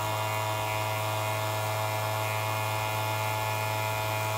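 Treadmill DC motor spinning an end mill in an ER32 collet holder at high speed while the lathe turns a brass workpiece against it: a steady electric hum with a whine of several steady tones above it, unchanging throughout.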